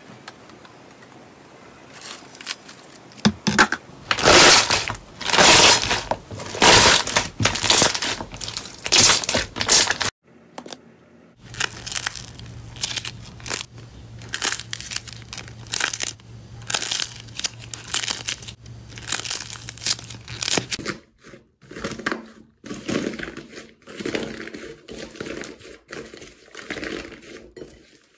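Hands working slime in a series of short clips, producing dense sticky crackling and popping. First pink slime is pressed and pulled through a wire rack, then a donut-shaped slime toy is squeezed, then fluffy white slime with crunchy orange pieces is torn apart, with crinkly tearing sounds.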